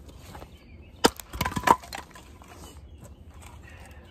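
Axe chopping small firewood: one sharp strike about a second in, then a quick cluster of cracks and splintering as the piece splits.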